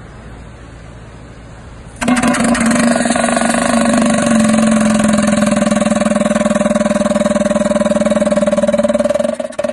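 Pneumatic Rhino PD200 vibratory pile hammer starting suddenly about two seconds in and running with a loud, steady, rapid buzzing rattle as it vibrates a wooden piling down into beach sand. Near the end its sound breaks into uneven pulses.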